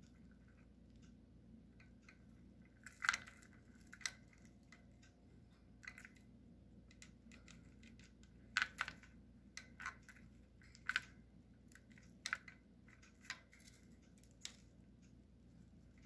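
Budgerigar pecking among seed and plastic dummy eggs in a plastic dish: about a dozen faint, sharp clicks, irregularly spaced.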